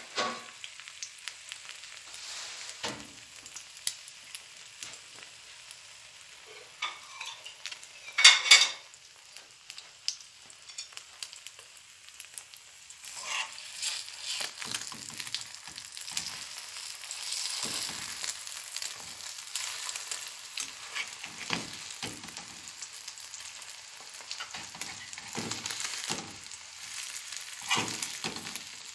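Eggs sizzling in a metal frying pan while a metal spoon stirs and scrapes them, breaking them up, with frequent short scrapes and one louder clatter about eight seconds in. The sizzle grows stronger in the second half.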